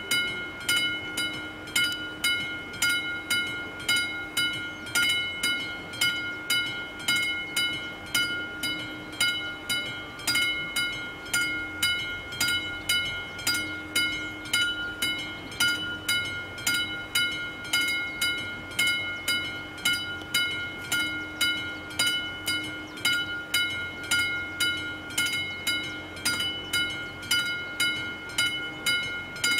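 Classic level-crossing bell at an AŽD 71 warning-light crossing, ringing steadily with evenly spaced strokes, each leaving a ringing tone between strikes: the crossing is activated for an approaching train.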